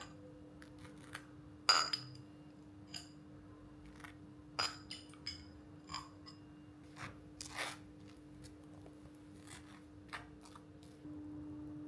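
Kitchen tableware being handled: about a dozen light clinks and taps of dishes, glass and cutlery, some with a short ring. Under them runs a steady low hum that gets louder near the end.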